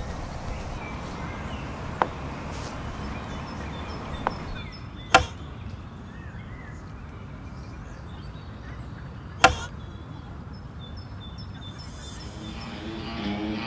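Wooden chess pieces being set down on a wooden chessboard: about four sharp clacks, the loudest about five and nine and a half seconds in, over a steady outdoor background. Music fades in near the end.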